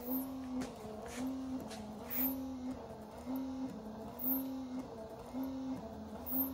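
1954 MG TF's electric windshield wipers running, the motor tone swelling and falling away in an even rhythm of about once a second as the arms sweep back and forth.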